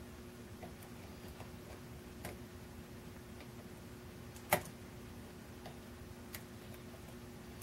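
Faint, scattered clicks of a steel pick and tension tool single-pin picking a brass Schlosser Technik 6-pin euro cylinder, the pin stacks ticking as they are lifted and set, with one sharper click a little past halfway.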